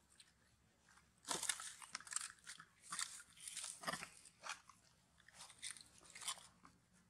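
Dry leaves crunching and crackling irregularly as long-tailed macaques shift and handle a baby on the leaf litter, starting about a second in. No crying is heard.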